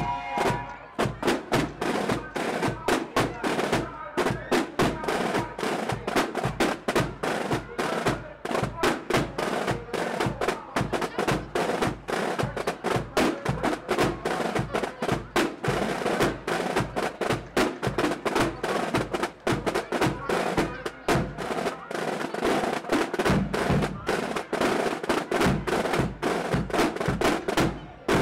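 Marching band drum section: many snare drums and a bass drum playing a march, a dense, steady run of beats and rolls.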